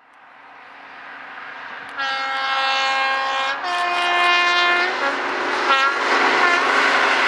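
A diesel locomotive's two-tone horn, sounded over the rumble of the passing train as it fades in: a long high note, then a long lower note, then two short blasts.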